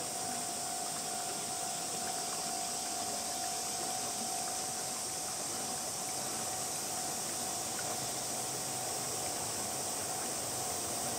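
Steady outdoor ambience: an even hiss with a bright high band, and a faint thin steady tone that fades near the end. The approaching train is not audible yet.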